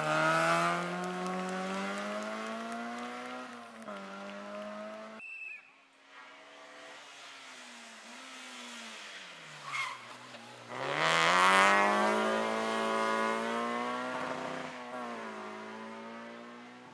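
Two rally cars running flat out on a stage, one after the other. First a car accelerates away, its engine note climbing and fading; then a second car's engine drops in pitch as it nears, rises sharply as it accelerates past, loudest about eleven seconds in, and fades away.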